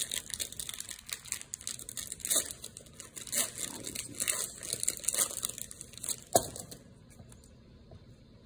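Foil wrapper of a Pokémon card booster pack crinkling and tearing as it is pulled open, with a sharp snap about six seconds in, after which the crinkling stops.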